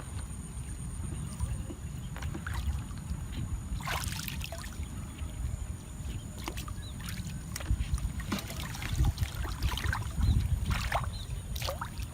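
Water sloshing and splashing in irregular bursts, the biggest about four seconds in and again near the end, over a steady low rumble and a faint high whine.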